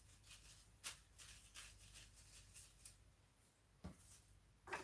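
Near silence with faint rustling and a few light clicks of flower stems being handled while a hand-tied bouquet is arranged.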